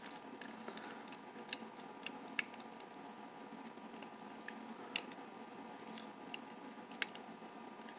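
A few faint, separate metallic clicks and ticks of an Allen wrench and small parts of a Sargent 758 padlock being handled during reassembly, over a low steady room hum.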